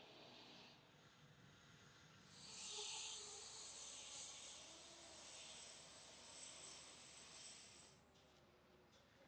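A steady high-pitched hiss, starting about two seconds in and stopping fairly abruptly about six seconds later.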